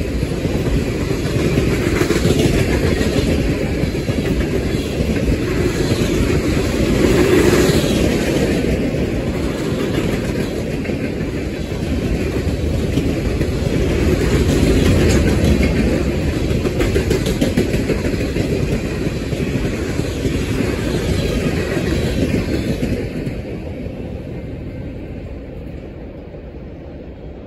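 Freight train of tank cars and boxcars rolling past close by: a steady, loud rumble of steel wheels on the rails, fading away over the last few seconds as the end of the train goes by.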